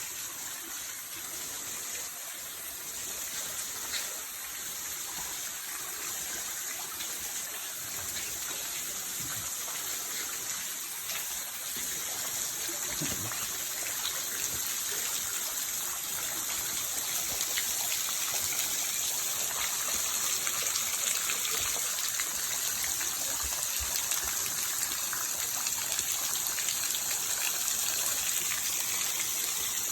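Waterfall: a steady rush of falling water that grows a little louder toward the end, with one short click about four seconds in.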